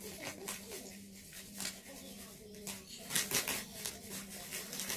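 Plastic bag rustling and crinkling in irregular bursts as a wig is pulled out of it and handled, loudest about three seconds in, over a faint steady hum.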